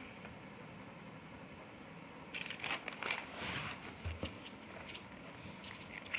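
Notebook paper pages being turned over by hand: a couple of seconds of quiet, then about two seconds of paper rustling with a soft thump as the pages settle, and a short click at the very end.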